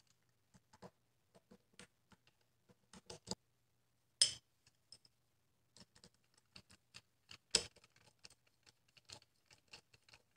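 Faint, scattered small clicks and taps of hands handling a plastic horn compression-driver housing and a small hand tool while it is reassembled, with two louder clicks about four and seven and a half seconds in.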